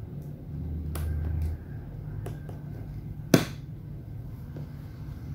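A small screwdriver prying at the tight seal of a cardboard camera box, making scattered light clicks and ticks as the box is handled, with one sharp snap a little past halfway. A brief low rumble comes early.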